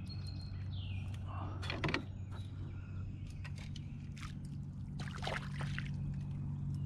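A hooked largemouth bass splashing at the surface as it is netted beside a canoe, with a louder splash about two seconds in and another around five seconds in. A steady low hum runs underneath.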